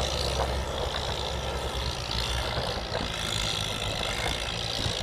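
Fiat 600 tractor's diesel engine running steadily under load as it pulls a tiller through a flooded paddy: an even, low engine drone with no change in speed.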